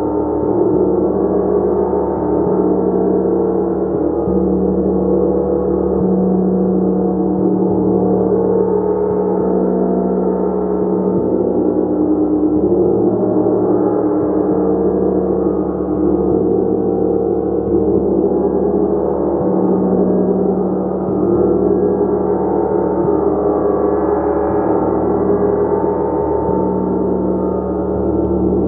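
Gong played continuously in a sustained, swelling wash of many overlapping tones, with no separate strikes standing out.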